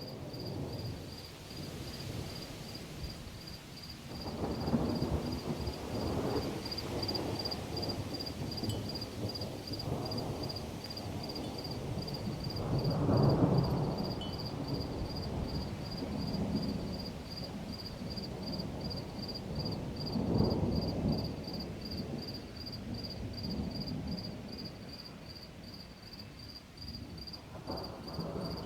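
Thunder rumbling in several long swells, loudest about thirteen seconds in, over a cricket chirping steadily at about two chirps a second.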